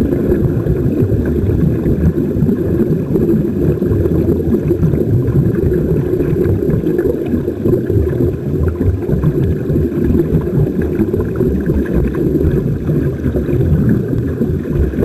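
Steady underwater rumble and bubbling of air streaming out of air-fed diving helmets, heard through an underwater camera housing.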